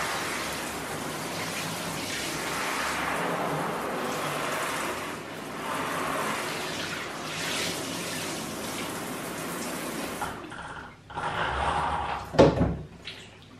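Water running and draining in a bathtub as it is emptied and rinsed, a steady rushing that dies away about ten seconds in, followed by a couple of short, louder sounds near the end.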